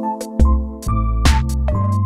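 Background music with deep bass, sustained chords and drum hits.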